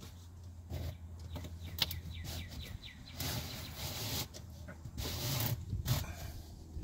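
A thin accent strip rubbing and scraping as it is slid along the seam between two stiff carbon-fiber trunk-liner panels, in a few drawn-out bouts, with a sharp click a little under two seconds in.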